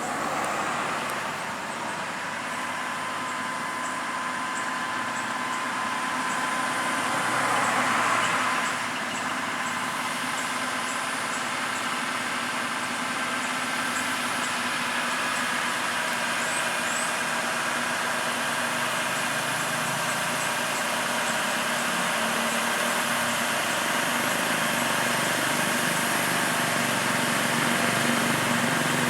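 Heavy vehicle engines pulling up a steep grade: a steady drone that slowly grows louder, with a short rush of noise about eight seconds in.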